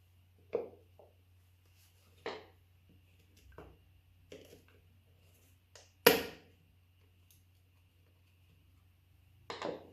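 Scattered short knocks and clicks from small parts and tools being handled during repair of a car's side-mirror glass actuator, about seven in all, the loudest about six seconds in.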